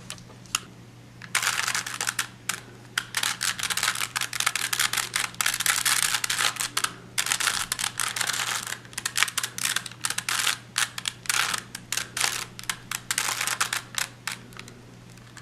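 A 3x3 Rubik's cube being turned by hand. Its plastic layers click and clack in quick runs of turns with short pauses between, as a solving algorithm is worked through.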